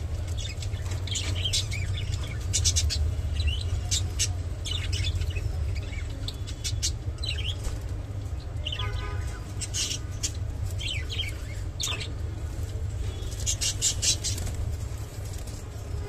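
Budgerigars chirping and twittering in short, scattered calls over a steady low hum.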